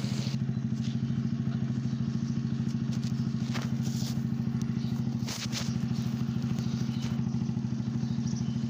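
Motorcycle engine running steadily with an even, rapid throb. A few light clicks come near the middle.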